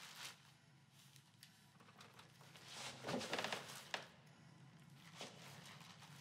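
A close, rasping scrape about halfway through, lasting roughly a second and ending in a small click, over faint room tone.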